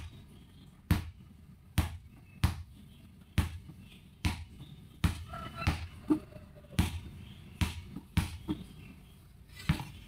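Rubber basketball being dribbled on a ceramic tile floor: about a dozen sharp bounces, roughly one a second. The ball is underinflated and the bounce is too low.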